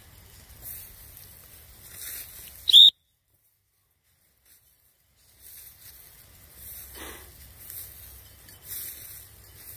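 Footsteps swishing through tall dry grass, with a brief loud high-pitched sound about three seconds in, after which the sound cuts out completely for about two and a half seconds before the swishing resumes.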